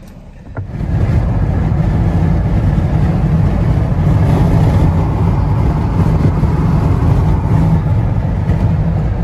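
Loud, steady road and wind noise of a car in motion, coming in suddenly about half a second in.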